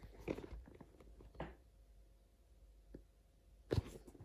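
Faint handling noise from a leather sneaker being flexed and turned in the hands: soft rustles and a few light knocks, with a sharper double knock near the end.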